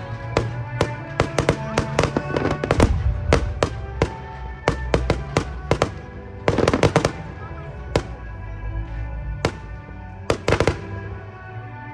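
Fireworks going off in a rapid series of sharp bangs and crackles over the display's accompanying music, with a dense flurry of bangs about halfway through and another shortly before the end.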